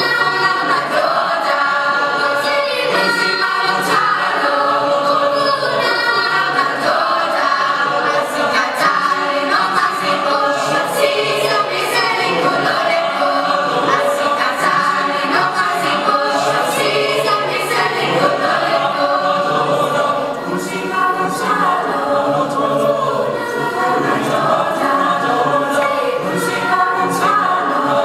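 A mixed choir of young singers singing in harmony, several voice parts together with notes held and moving between chords.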